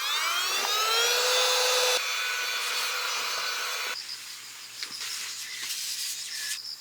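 A small motor spinning up, its whine rising and then holding steady before cutting off about two seconds in. After about four seconds, crickets chirp steadily.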